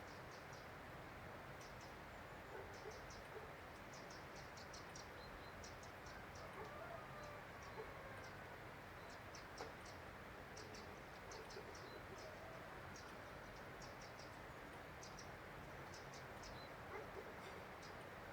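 Faint, short, high-pitched chirps of small birds, coming in quick clusters, over a steady soft hiss of outdoor ambience.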